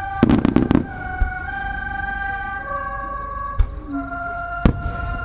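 Aerial firework shells bursting: a quick rapid cluster of booms about a quarter second in, then single bangs at about three and a half and nearly five seconds in. Under them, music with long held notes.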